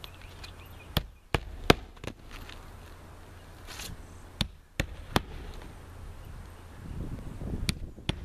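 Claw hammer driving roofing nails through a new asphalt shingle: about nine sharp strikes in three quick groups, a few blows per nail with short pauses between.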